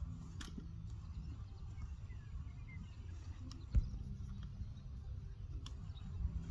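A horse being mounted and ridden at a walk on soft dirt, with a few scattered hoof thuds and clicks and one sharper thump a little past halfway, over a low steady rumble. Faint bird chirps sit in the background.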